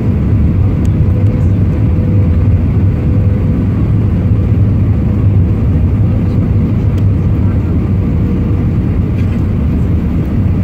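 Steady cabin noise inside an Airbus A320 on final approach with flaps extended: engine and airflow noise as a deep, even rumble, with a faint steady tone that fades out near the end.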